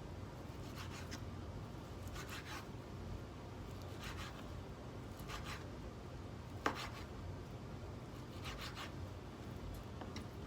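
Kitchen knife cutting raw pork on a cutting board. About six short scraping slicing strokes come at an unhurried pace, and there is one sharp tap of the blade on the board about two-thirds of the way through.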